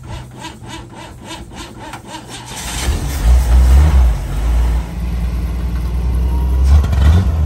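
1971 International Harvester Metro Mite's engine being cranked by the starter, about five even turns a second. About three seconds in it catches and runs with a steady low rumble.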